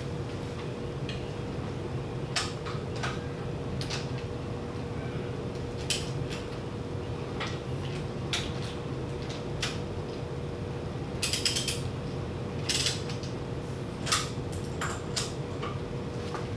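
Ratchet of a long torque wrench clicking as it is worked on a camshaft sprocket bolt of a BMW N62 V8. Single clicks at first, then short quick runs of clicks about eleven seconds in and again near the end.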